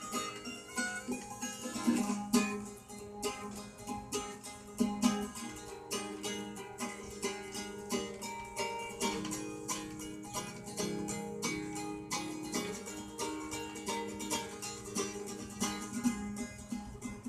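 Guitar played with many quickly picked notes over lower notes left ringing.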